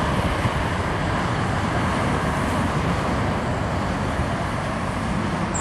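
Steady roar of a Boeing 747's jet engines on its landing approach and touchdown, mixed with road traffic noise, easing slightly toward the end.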